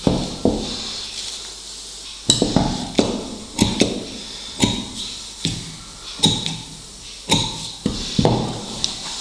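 Tailor's scissors snipping fabric and clicking against the cutting table: about a dozen sharp metallic clicks at irregular intervals, with cloth being shifted between them.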